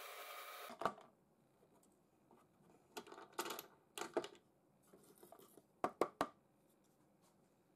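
Drill press running with a Forstner bit in plywood, cutting off just under a second in. Then scattered light knocks and clatters of handling on the drill table, ending with a quick cluster of three.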